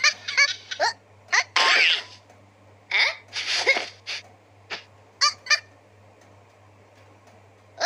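High-pitched squealing laughter in short falling squeaks and breathy, wheezing gasps, coming in fits with pauses between them.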